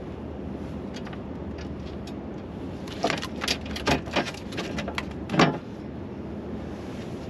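Knocks and clatter of gear being handled on a small fiberglass boat, a cluster of about five sharp knocks from about three seconds in, the last one loudest, over steady background noise.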